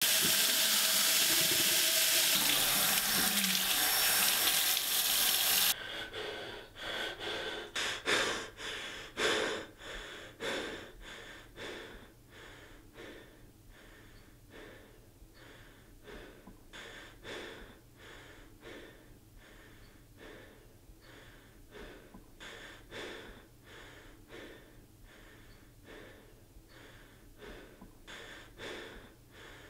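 Bathroom faucet running full over hands into a sink, cut off suddenly about six seconds in. Then a long run of short, heavy breaths, about one a second, loudest just after the water stops and growing fainter.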